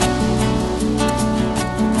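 Background music of plucked acoustic guitar, with notes changing about every half second.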